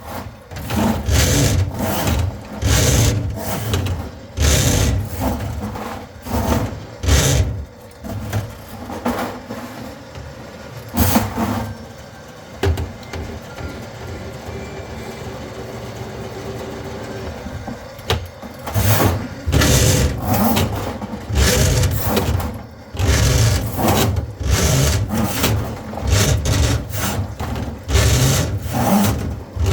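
Motor-driven drain-cleaning cable machine working a cable through a grease-clogged drain line, running in irregular bursts with rubbing and rattling, steadier for several seconds in the middle.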